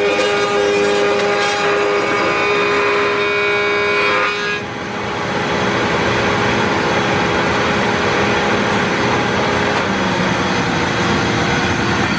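Table-mounted router with a round-over bit cutting a strip of wooden molding, a loud, high whine for about four seconds. Then the router runs on without load, a steady rushing noise, to the end.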